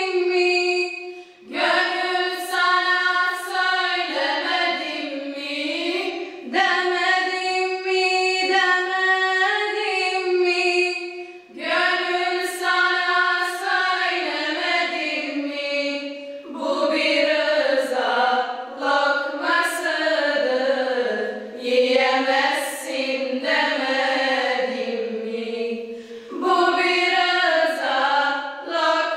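A choir singing a Bosnian Islamic devotional hymn in long held phrases, with short breaks for breath between them.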